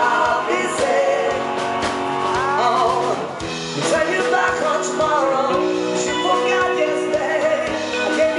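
Pop music with a sung vocal line over a steady drum beat.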